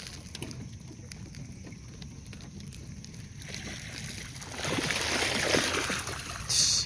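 Mallard ducks splashing across the water in a chase, wings and feet beating the surface for a couple of seconds from about four and a half seconds in, over steady water lapping. A brief loud hiss cuts in just before the end.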